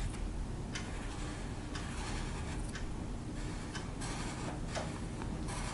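Scratchy strokes of writing, several in a row with short pauses between them, over a low steady hum.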